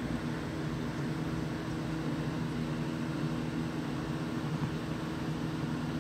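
Steady low hum with an even hiss, typical of aquarium equipment such as an air pump or filter running continuously.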